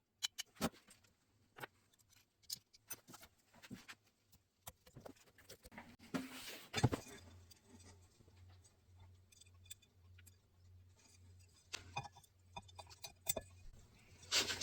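Scattered light clicks and taps of small metal carburetor parts being handled and fitted, with a brief denser clatter about six to seven seconds in.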